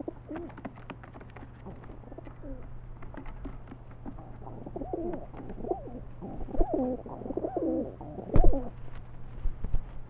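Feral rock pigeons cooing, a run of low rising-and-falling coos through the second half, with scattered clicks and one loud thump about eight seconds in.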